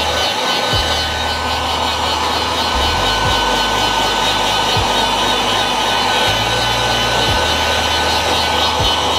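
Heat gun blowing steadily, a constant hot-air hiss with a faint motor whine, as it cures the DTF powder adhesive on printed transfer film.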